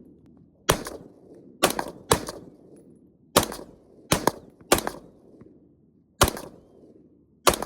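M16 rifle firing 5.56 mm green-tip rounds: eight single shots at an uneven pace, each followed by a trailing echo.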